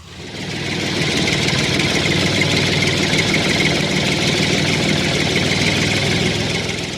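Small diesel engine running steadily at idle, rising in level over the first second.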